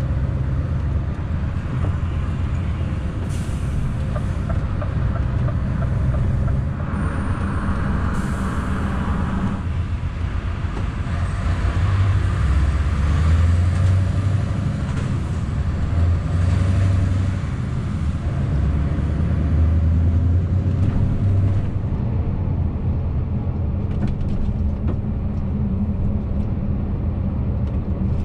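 Scania S650 truck's 16-litre V8 engine running under way, heard from the cab. The engine note shifts in steps several times, and there is a brief hiss about seven seconds in.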